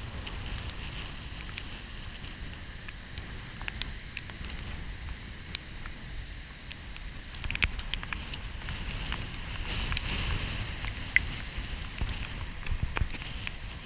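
Wind buffeting the microphone over the steady hiss of rough surf breaking on a sandy beach in a storm. Scattered sharp ticks and clicks run through it.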